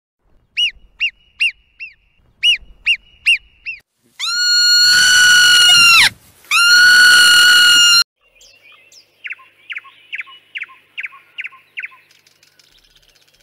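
Two long, loud, high whistling calls, typical of a bull elk bugling, between runs of short high animal chirps: two groups of four before, and about seven quick falling squeaks after.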